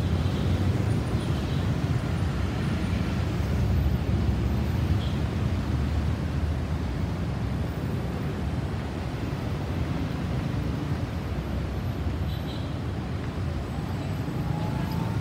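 Jet airliner passing overhead at altitude: a steady low rumble that eases slightly as it moves away, mixed with wind and traffic noise.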